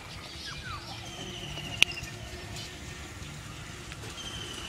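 Wild birds calling in rapid trills, one run about a second in and another near the end. There is a single sharp click just before the two-second mark.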